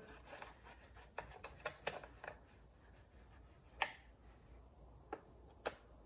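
Faint, scattered clicks and light scrapes of a flathead screwdriver turning out the top cover screws on a Husqvarna 240 chainsaw's plastic cover, the sharpest click about four seconds in.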